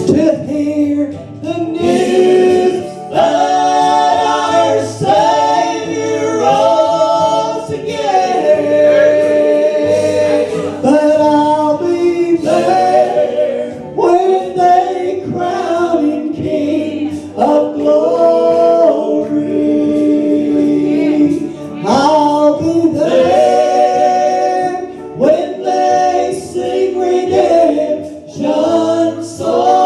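Gospel song sung by several voices in harmony, with held notes and vibrato, in phrases that break every few seconds.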